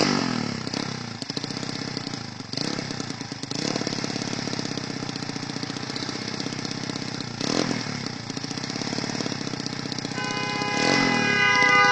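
Motorcycle engine running with a harsh, rapid knocking and rattling, revved briefly a few times: the sound of a badly damaged engine. Near the end a vehicle horn sounds with a steady tone.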